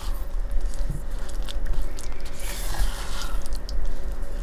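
Silicone spatula mashing and stirring soft cream cheese and browned butter in a stainless steel bowl: wet squishing with scattered light scrapes against the metal, over a steady low hum.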